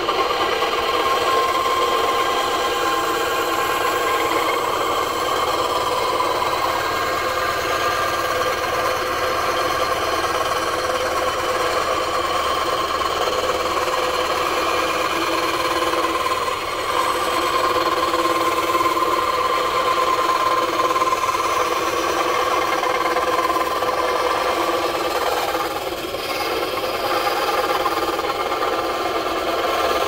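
Benchtop band saw running and cutting lengthwise through a wooden block: a steady machine whine over the rasp of the blade in the wood, dipping briefly about halfway through and again near the end.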